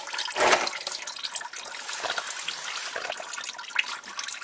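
Used engine oil trickling and dripping out of a loosened spin-on oil filter into a drain pan, with a brief louder splash about half a second in.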